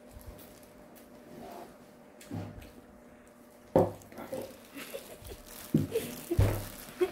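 Handling noises: a sharp knock a little under four seconds in, then scattered taps and the crinkle of a disposable plastic glove as a gloved hand picks food up off a plastic plate.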